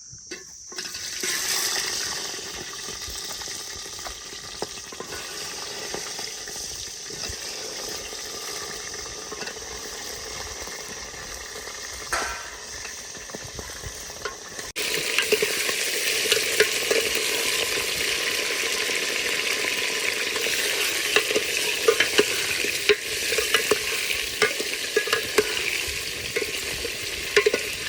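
Chicken drumsticks frying in hot mustard oil in a metal cooking pot: a steady sizzle with scattered clicks and scrapes of stirring. The sizzle swells briefly about a second and a half in and becomes suddenly louder about halfway through, staying louder to the end.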